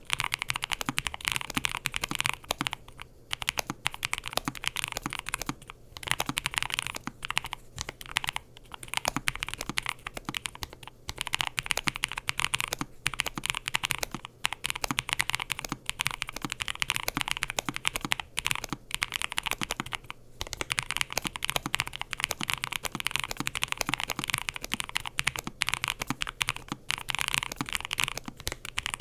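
Fast, continuous typing on a NuPhy Air75 v3 low-profile mechanical keyboard with Red Nano linear switches and nSA PBT keycaps, gasket-mounted with a PC plate, with brief pauses between bursts of keystrokes.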